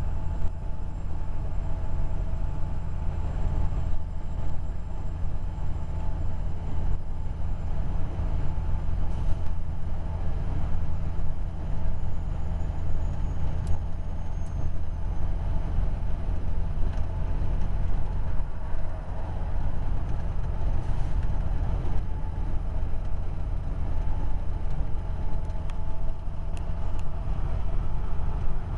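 Heavy semi-truck's diesel engine and road noise, a steady low drone at cruising speed.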